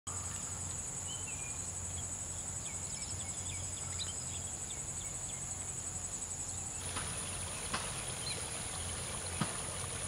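Insects trilling steadily at a very high pitch, two trills together until one stops about seven seconds in while the higher one carries on. Faint short bird chirps come in the first half, a few sharp clicks follow in the second half, and a low steady hum runs underneath.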